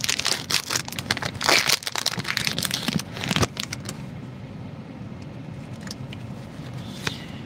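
Foil wrapper of a Pokémon TCG booster pack being torn open and crinkled, a dense crackling for about three and a half seconds, then much quieter with a few faint clicks.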